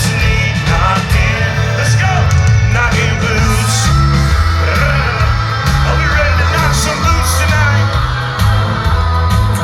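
Live country-rock band playing loudly, with a heavy bass line, drums and guitar, and voices singing and yelling over it.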